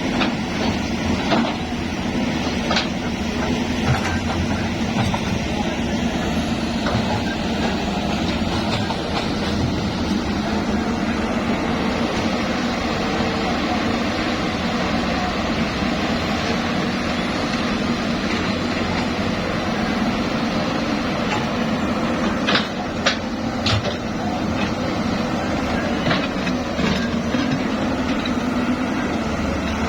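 Excavator's diesel engine running steadily under work, with a few sharp knocks, a cluster of them about two-thirds of the way through.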